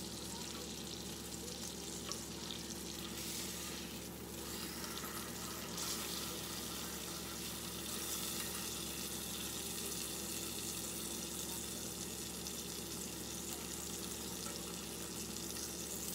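Catfish fillet searing in a cast-iron skillet, sizzling steadily.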